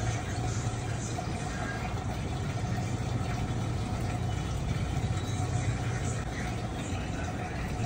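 A steady low machine hum with one faint constant tone, running evenly without change.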